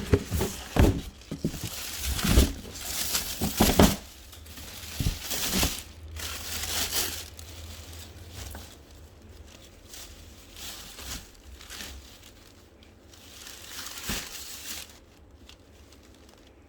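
Packaging crumpling and crinkling as a new handbag is unwrapped, loud for the first several seconds and then quieter, with a single knock near the end.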